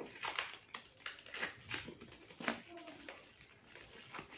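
Plastic stretch wrap on a parcel crinkling and rustling under the fingers in short, irregular scratches.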